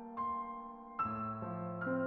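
Slow, gentle piano music: single notes struck every half second or so, ringing on over held chords.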